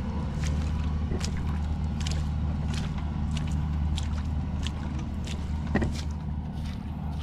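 Kubota crawler combine harvester's diesel engine running steadily as the machine tracks through mud, with irregular clicks and knocks from the running gear a few times a second. A brief squeak comes about six seconds in.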